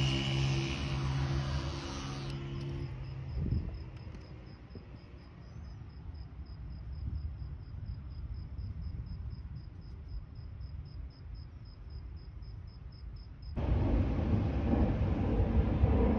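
An electric hair clipper hums steadily for about two seconds and switches off. Then only faint outdoor rumble remains, with a fast, even, high-pitched chirping, until louder wind and traffic noise cuts in suddenly near the end.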